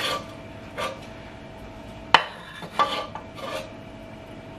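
A slotted wooden spoon scooping steamed broccoli and cauliflower out of a pan of water and into a glass baking dish: about five knocks and scrapes of wood against the pan and dish, with one sharp knock about two seconds in.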